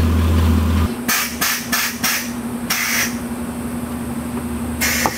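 Muffler-deleted, straight-piped truck engine idling with a deep rumble that stops abruptly about a second in. After it come sharp knocks, four in quick succession and then two more spread apart, over a steady hum.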